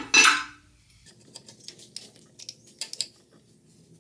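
Metal engine parts clanking and clicking as the bottom of an LS V8 block is worked on: a loud clank at the very start, then light scattered metallic ticks and clicks.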